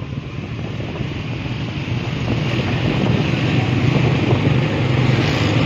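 Wind buffeting the microphone on a moving motorcycle, with the motorcycle's engine running low underneath. The roar grows steadily louder as the bike gathers speed.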